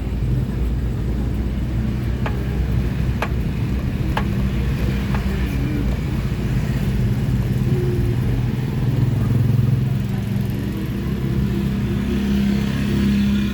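A motor vehicle engine running steadily, with a few faint clicks about a second apart in the first half.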